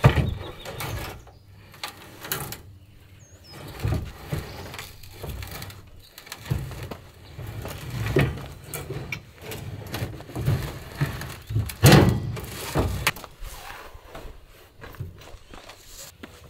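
A heavy metal basement air-conditioner unit being dragged and slid out of its bay: irregular scraping, creaking and knocking. There is a sharp clunk at the start and the loudest knocks come about twelve seconds in.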